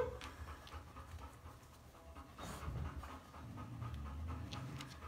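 Puppies panting, with a few light clicks and knocks as they move about.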